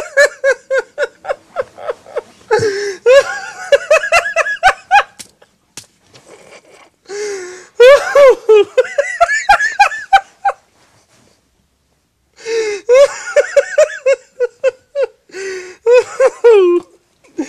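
A man's uncontrollable fit of laughter in rapid, high-pitched ha-ha pulses with gasps. It comes in three bouts, with short breathless pauses between them. It is a fake laugh that has turned into real laughter he cannot stop.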